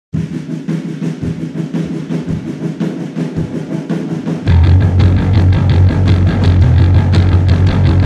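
Rock band music: drums keep a fast, even beat, and about halfway through a heavy bass and the rest of the band come in and the music gets much louder. It is the opening of a song written to sound like a train.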